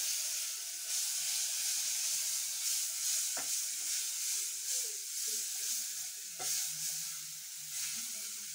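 Chopped tomatoes and onions sizzling steadily as they fry in a metal pot, stirred with a wooden spoon that knocks against the pot twice.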